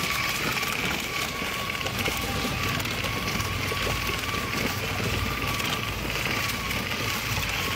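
Child's battery-powered ride-on toy tractor rolling over gravel. Its plastic wheels crunch and crackle on the stones over a steady whine from its small electric motor.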